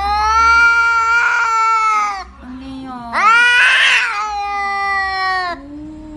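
Domestic cat yowling: two long, drawn-out caterwauls of about two and a half seconds each, each rising in pitch at its start and turning rough and raspy partway through, with short low murmurs between and after them.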